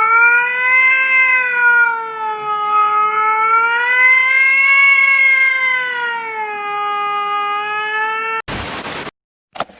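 A cat yowling in one long, unbroken call whose pitch slowly rises and falls. It cuts off abruptly about eight and a half seconds in, followed by a brief burst of noise.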